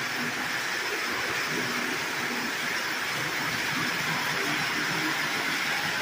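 Several Lionel O-gauge toy trains running at once on three-rail track: a steady whir of motors and wheels on the rails.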